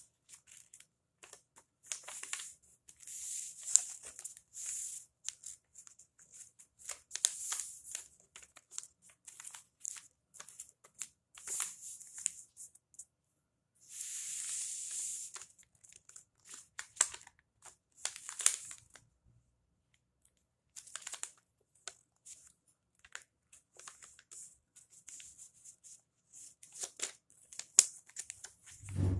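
A sheet of paper being folded and creased by hand into a paper airplane: irregular crisp rustles and crinkles as folds are pressed and smoothed, with one longer sliding rub about halfway through.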